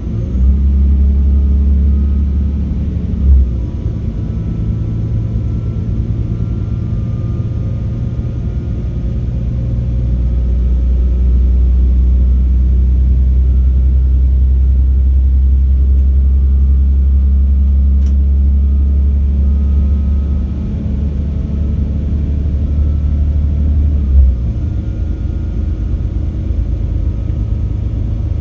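Class 196 diesel multiple unit's MTU 6H 1800 inline-six diesel engines running under power, a deep steady drone with a thin high turbocharger whistle. The whistle rises about a second in, holds, and fades away near the end as the engine note eases. There is a brief thump a few seconds in and another near the end.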